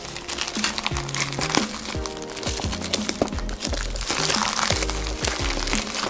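Background music, with thin plastic mailer packaging and tape crinkling as it is handled and cut open with scissors.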